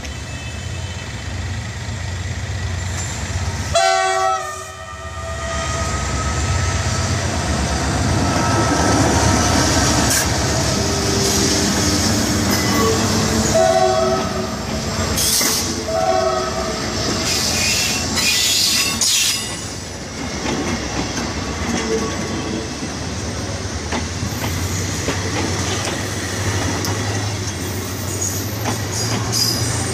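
SNCFT locomotive-hauled passenger train passing close by with a steady low rumble, and its horn sounding for about a second some four seconds in. Two brief tones follow midway, and the coaches' wheels click over the rail joints as they go by.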